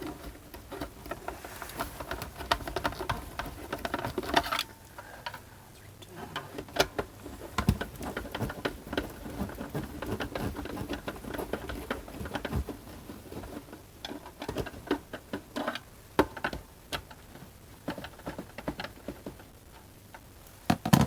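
Hand work on a vintage boombox's plastic casing and screws: a run of irregular small clicks, taps and scrapes, with a sharper knock about four and a half seconds in and another near the end.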